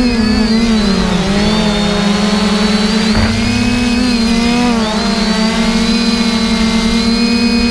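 Multirotor drone's electric motors and propellers humming, a steady buzzing tone whose pitch dips about a second in and wavers a few times as the throttle changes, then holds steady.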